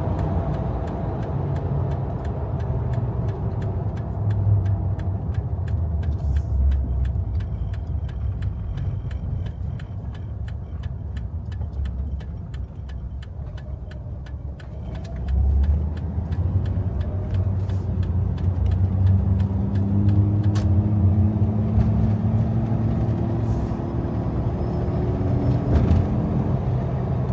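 Old Jeep heard from inside the cab, its engine running with road rumble. Through the first half it idles with a steady fast ticking of the turn signal while waiting at a stop sign. About halfway through it pulls away, and the engine note rises as it accelerates.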